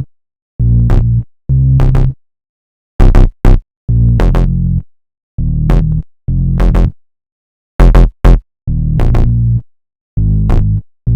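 Electronic music with a drum machine and synthesizer, chopped into short bass-heavy bursts and sharp hits, each cut off abruptly into dead silence.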